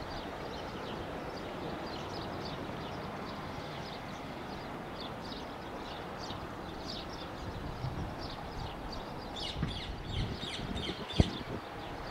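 Steady distant rumble of an Airbus A320's jet engines at taxi, with birds chirping over it, more often in the second half. A single sharp tap comes about eleven seconds in.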